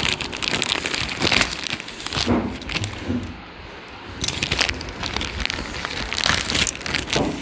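Clear plastic zip-lock bag crinkling and crackling as it is handled, in irregular bursts with a quieter stretch about three seconds in.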